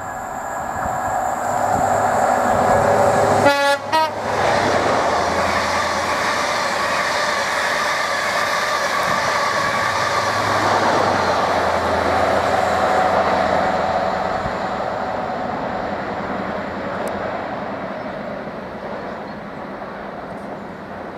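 A High Speed Train with Class 43 diesel power cars running through a station at speed, sounding a horn briefly in the first few seconds as the lead power car comes past. The wheel and coach noise of the rake follows, with a second swell as the rear power car passes, then the sound fades away over the last several seconds.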